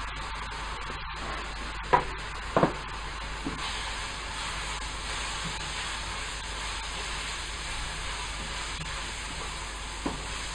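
Diced vegetables sizzling in a frying pan while a wooden spatula stirs them, the sizzle growing louder about three and a half seconds in. A few sharp knocks of the spatula against the pan, the loudest about two seconds in and another near the end.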